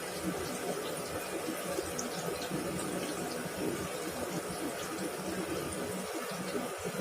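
Breadcrumb-coated prawns deep-frying in hot oil: a steady sizzle with scattered small crackles.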